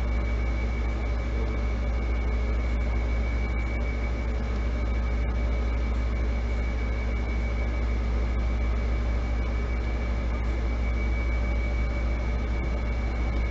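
Steady machine hum: a strong low drone and an even hiss with a thin high-pitched whine above them, unchanging throughout.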